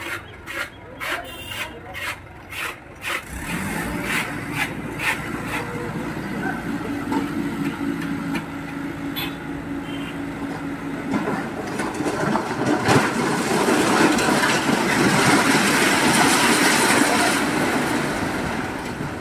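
Mahindra tractor engine running under load while its hydraulic tipper raises the trailer, after a run of sharp knocks in the first three seconds. In the second half, concrete blocks slide and clatter out of the tipping trailer bed, the loudest part.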